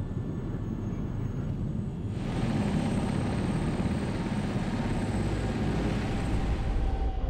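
A Super Puma-type twin-turbine helicopter running on the ground, its rotor turning, with a steady dense rumble and a thin high turbine whine. About two seconds in, the sound becomes fuller and brighter.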